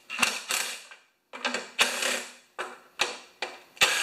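Cordless drill-driver backing screws out of a lawnmower engine's top, run in short bursts: about eight sharp clicks, each followed by a brief whir.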